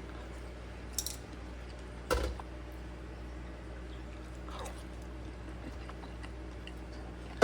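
A person eating quietly, chewing, with a light click about a second in and a soft knock about two seconds in, over a steady low background hum.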